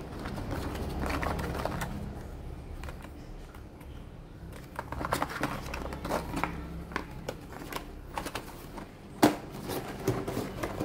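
Packaged fishing lures being handled: scattered light clicks and rustles of the packs, more frequent from about five seconds in, with one sharper click about nine seconds in.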